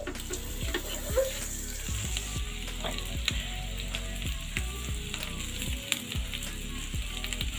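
Eggs frying in melted butter in a hot pan: a steady sizzle with frequent small crackles and pops.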